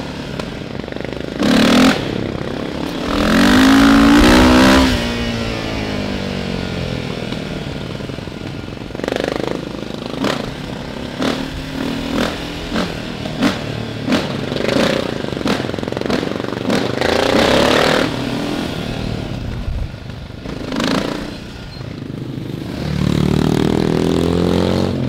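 Sport ATV engine running while riding, revving up in several rising pulls. The loudest pull comes about four seconds in, another in the middle, and a third builds near the end.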